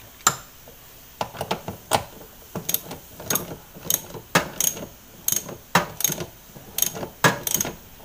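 Socket ratchet wrench clicking in short bursts as a bolt on a washing machine's motor belt adjuster is tightened a little, locking in the freshly set drive-belt tension.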